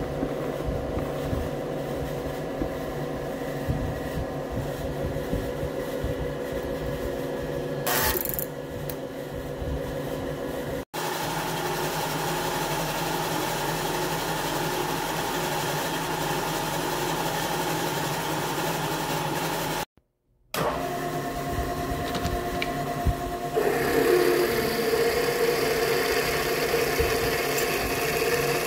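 Milling machine running with a steady hum from its motor and spindle: it first taps bolt holes in an aluminium bearing housing, then cuts and drills a steel drive flange, with the drilling louder near the end. The sound drops out briefly twice at cuts.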